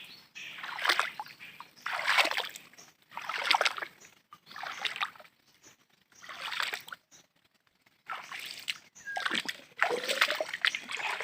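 Water splashing in a regular rhythm, about one splash a second, with a short lull midway, like strides or strokes moving through shallow water.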